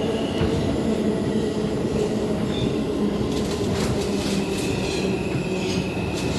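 Inside an R142 subway car at a station stop: a steady hum with a thin high whine from the car's equipment, and a few clanks and rattles between about three and five seconds in.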